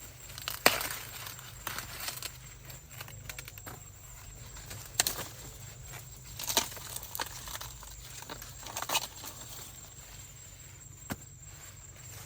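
Irregular sharp snaps and short bursts of rustling, as of dry corn leaves and husks being handled and ears snapped off the stalks by hand, over a steady low background hum.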